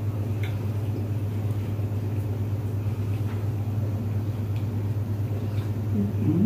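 A steady low background hum, with a few faint clicks of chewing and a short hummed 'mm' near the end.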